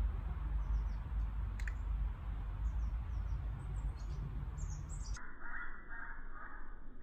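Low rumble of wind on the microphone with faint high bird chirps; about five seconds in, the rumble stops and a steady hiss begins as the cake-candle firework starts jetting colour.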